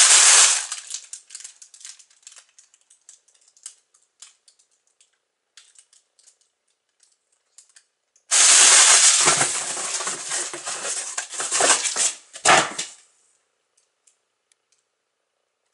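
Plastic air-pillow packing crinkling and rustling as it is handled and pulled out of a cardboard box. One loud spell fades within the first second, a few faint crackles follow, and a second loud spell of crinkling starts about eight seconds in and lasts about five seconds.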